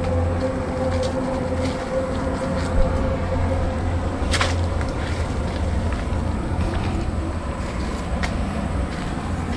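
Steady low droning hum of an unseen machine, taken for an engine. A fainter steady tone above it fades out around the middle, with a few scattered clicks and rustles of movement through undergrowth.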